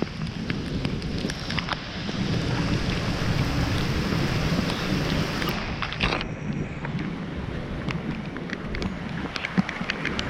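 Steady rain, with many drops ticking close to the microphone, over a low rumble of wind on the microphone. A sharp tap about six seconds in.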